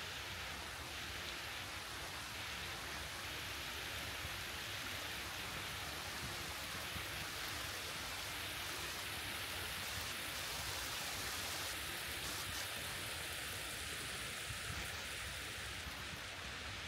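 Water running down a stepped cascade fountain (a water staircase): a steady, even splashing rush with no break.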